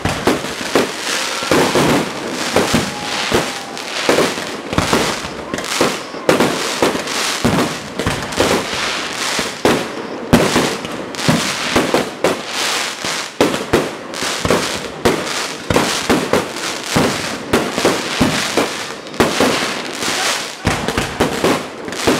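Aerial fireworks display firing a dense barrage: sharp shell bursts and bangs, several a second, over continuous crackling from the bursting stars.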